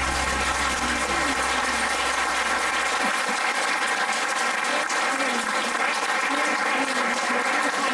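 Audience applauding steadily, with children's voices chattering underneath; a low hum cuts off about three seconds in.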